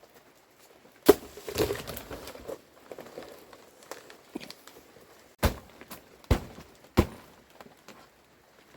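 Sharp knocks from objects being put down or struck, four in all, the first the loudest, with shuffling and rustling of handling in between.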